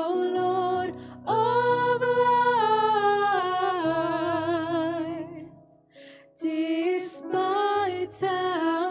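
A slow communion hymn sung by a single voice over held low accompaniment notes, with vibrato on the long notes and a short break in the singing about six seconds in.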